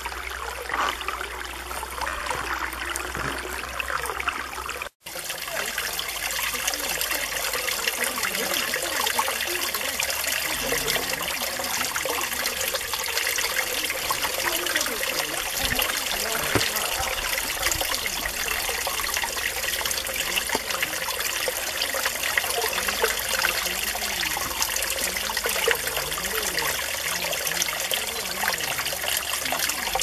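Mountain stream water running steadily. About five seconds in, the sound cuts out for an instant, then resumes a little louder.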